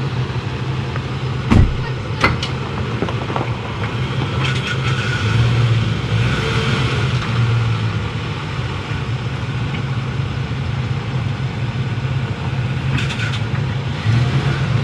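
Ford F-150 pickup's engine running low and steady as it tows a fifth-wheel trailer slowly forward, with two sharp knocks about two seconds in.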